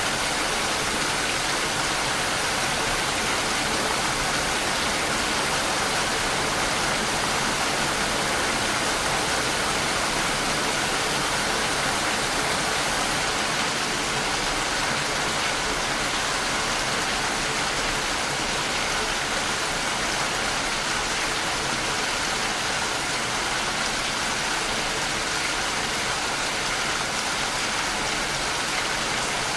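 Steady, even rainfall with a constant rushing hiss.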